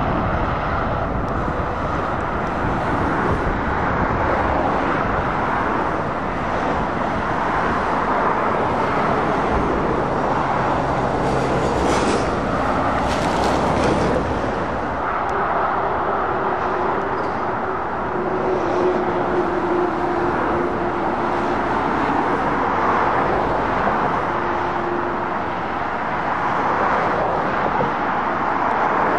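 Continuous road traffic noise: cars and heavy lorries driving past, an even rush of tyres on tarmac and engines. A faint steady whine sits over it through the middle stretch.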